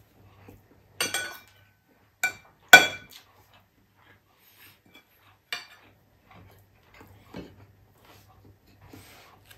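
Metal spoon clinking against a ceramic bowl and plate while scooping food: a handful of sharp clinks, the loudest about three seconds in, then a duller knock near the end, with faint handling sounds between.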